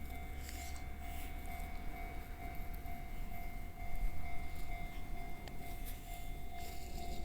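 Japanese level-crossing warning bell ringing steadily, a repeating electronic tone, over a constant low rumble.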